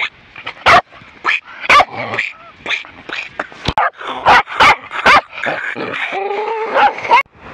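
Tibetan terrier barking excitedly at close range, a rapid, irregular string of sharp, loud barks, with a drawn-out whine near the end.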